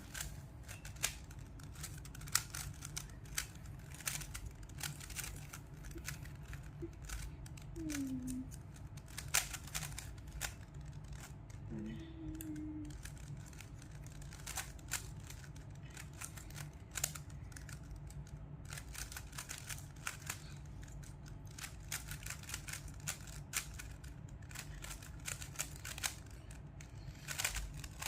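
Plastic Rubik's cube being turned by hand: irregular quick clicks and clacks as the layers are twisted, over a steady low hum.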